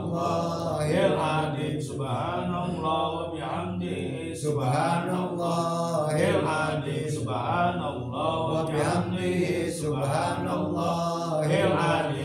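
A group of men chanting Islamic dhikr in unison: low voices repeating short devotional phrases in a steady rhythm, with brief breaks between phrases.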